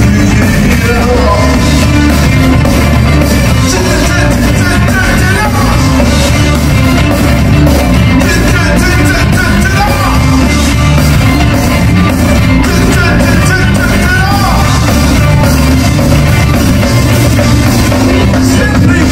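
Live rock band playing at full volume: electric guitars, bass guitar and drums, with a singer's voice coming and going over them.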